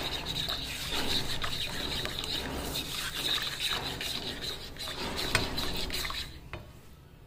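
Silicone balloon whisk stirring thin béchamel-style white sauce in a nonstick frying pan: a continuous wet sloshing with soft scraping against the pan, which fades out near the end.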